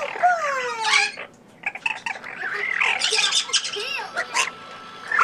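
Parrot vocalizing: falling whistles and squawky chatter in two bursts, with a brief pause a little over a second in.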